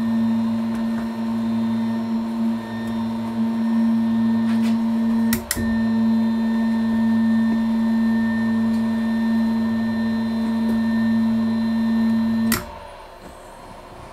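Drill press knee's motorized drive running steadily with an even hum, moving the knee up or down. There is a click and a brief dip about five and a half seconds in, and the motor stops with a click near the end.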